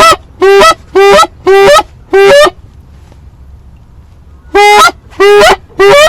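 Goose honking: five loud two-part honks about half a second apart, each breaking upward at its end, then a pause of about two seconds and three more honks.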